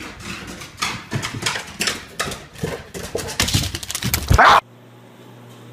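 A dog's claws clattering on a hardwood floor as it runs up in quick irregular steps, ending in a loud thump about four and a half seconds in.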